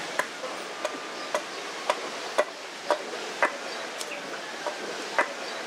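A hand tool striking timber in sharp, regular taps, about two a second, as wood is worked by hand.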